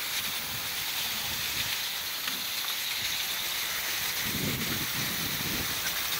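Garden hose nozzle spraying a fine mist of water over plastic toy tractors: a steady hiss of spray.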